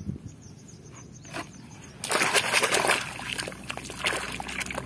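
A hand splashing and sloshing hard in a shallow muddy puddle, washing a small toy clean; the splashing starts suddenly about two seconds in, after a quiet stretch.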